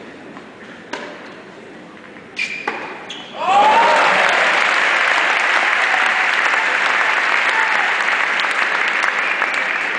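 A few sharp tennis-ball strikes during a rally, then about three and a half seconds in the crowd breaks into loud, steady applause that carries on.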